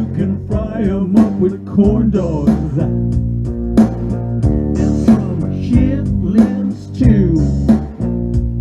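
Blues-style music led by guitar, with bass guitar and a steady beat; some guitar notes bend in pitch.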